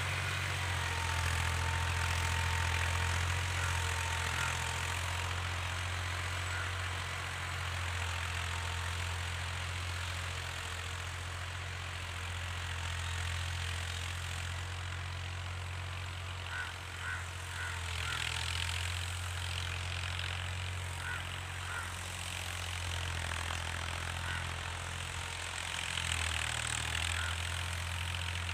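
Ghazi tractor's diesel engine running steadily, a low drone heard from a distance as the tractor pulls a plough across the field.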